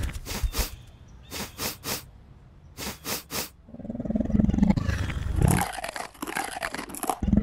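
Cartoon dinosaur sound effects for a Lego T. rex: short sniffs in quick groups of three, then a low growl for about two seconds, then a fast run of crunching clicks and a thump near the end.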